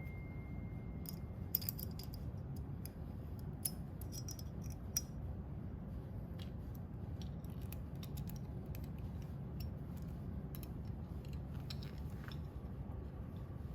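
Scattered light metallic clicks and ticks of screws and a hand tool being worked while the support arm's screws are tightened, over a steady low hum. A faint high steady tone sounds for about the first second and a half.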